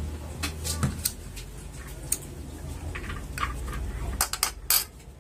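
Light clicks and knocks of tableware: a plastic cup set down on a tiled table and a plate of sliced mango being handled. They come scattered, with a quick cluster of clicks about four seconds in, over a steady low hum.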